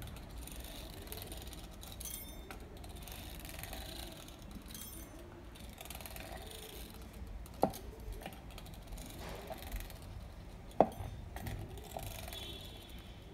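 Fluted shankarpali cutter wheel rolling through rolled dough on a wooden board: a faint, uneven scraping, with two sharp knocks, one a little past the middle and one near the end.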